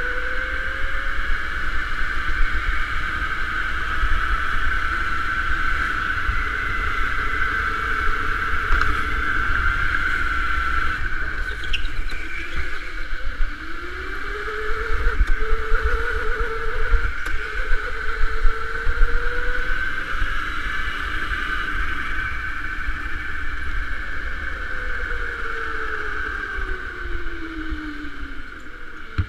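Electric go-kart motor whining under way, its pitch rising and falling with speed through the corners over a low rumble. Over the last several seconds the whine falls steadily as the kart slows.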